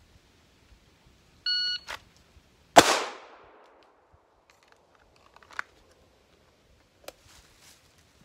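A shot timer gives one short start beep, and about 1.3 seconds later a single pistol shot is fired, its echo fading over about a second: a one-shot draw from concealment timed at 1.33 seconds. A few faint clicks follow.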